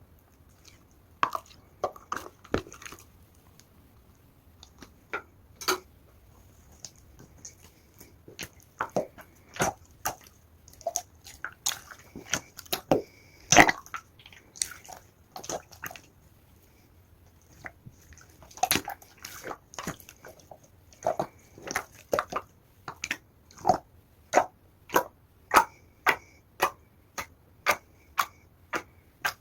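Clear slime being squeezed and pressed by hand, giving sharp wet clicks and pops, irregular at first, then a steady run of about two pops a second near the end.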